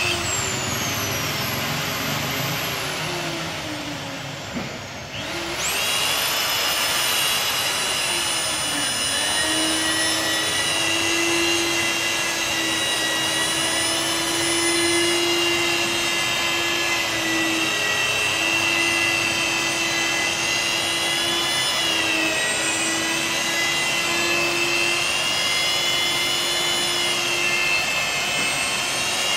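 Corded handheld electric polisher whining steadily as it spins a felt pad over glass during glass polishing. About four to five seconds in, the motor's pitch sags and it briefly eases off, then it winds back up and runs on with a slight waver.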